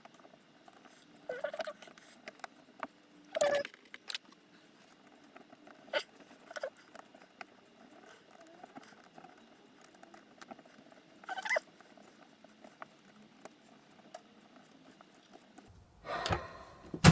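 Quiet, scattered clicks and short squeaky scrapes of a hand screwdriver working small screws into the aluminium servo brackets of a robot arm, with a louder clatter near the end as metal parts are handled.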